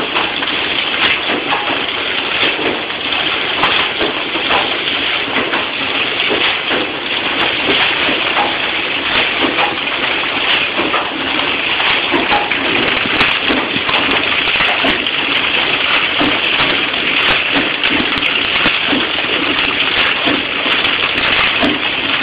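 Bread packaging machine running: a steady, dense mechanical noise with many faint clicks through it.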